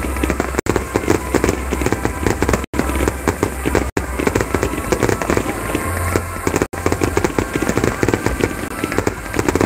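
A dense fireworks barrage: many aerial shells bursting in quick succession, a continuous run of bangs and crackling. The stream's audio cuts out for an instant four times.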